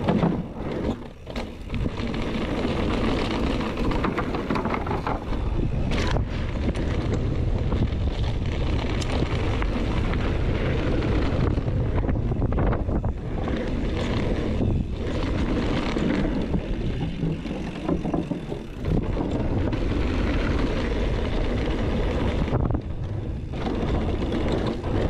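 Wind rushing over an action camera's microphone while a mountain bike rolls fast down wooden boardwalk slats, with a steady rumble from the tyres and a few sharp knocks from bumps. The bike is coasting with no chain on.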